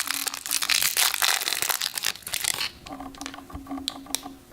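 Plastic packaging crinkling as it is handled and opened, a dense crackle for about two and a half seconds. It then gives way to a few light clicks.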